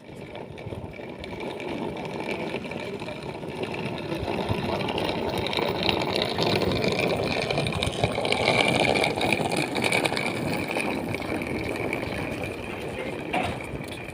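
Suitcase wheels rolling along the ground: a continuous rumble with a steady high whine over it, growing louder towards the middle and easing off near the end.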